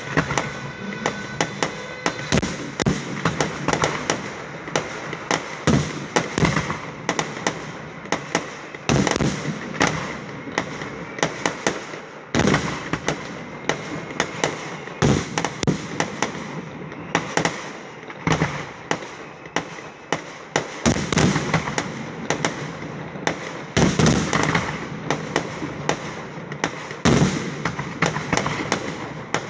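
Fireworks display: a rapid, continuous stream of sharp pops and bangs from shells and ground effects, with heavier bursts standing out every few seconds.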